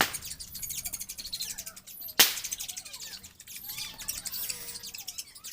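Birds chirping rapidly and continuously in high, thin notes, with one sharp loud click about two seconds in.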